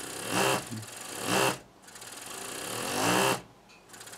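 Vacuum pump of an AOYUE 474A++ desoldering station run through a linear speed control. Its hum rises steadily in pitch and loudness, then cuts off sharply, three times in a row, with a fourth run-up starting near the end.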